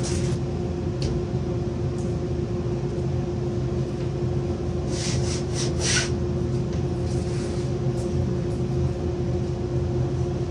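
A steady machine drone in a workshop: a constant hum over a low rumble. About five seconds in comes a short cluster of scrapes and knocks from plywood panels being handled.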